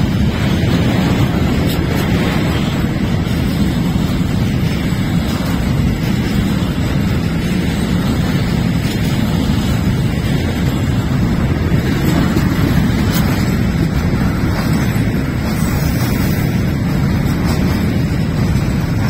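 Freight train of covered hopper wagons passing close by: a steady, loud rumble of steel wheels on the rails, with a few faint clicks.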